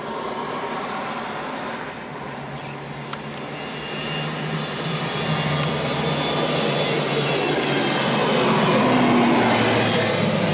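ATR twin-turboprop airliner taking off and climbing out overhead, its engines at takeoff power. The sound grows steadily louder, and a high whine drops slowly in pitch near the end as the aircraft passes.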